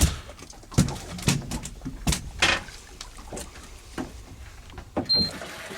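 A series of irregular knocks and thumps, about six of them, with a short high beep near the end.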